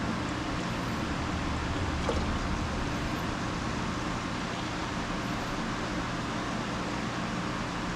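A steady mechanical hum: an even hiss over a low, constant drone, with a faint click about two seconds in.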